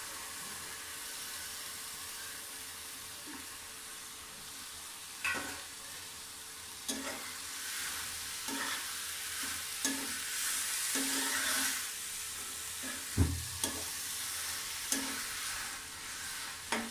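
Soaked maash (urad) dal sizzling as it fries in oil and masala in a metal pot. A metal spatula scrapes and knocks against the pot at irregular moments as the dal is stirred, with one louder knock about 13 seconds in.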